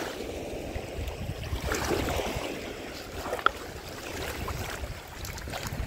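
Small waves lapping on a shallow pebbly sea shore, with wind rumbling on the microphone and a sharp click about three and a half seconds in.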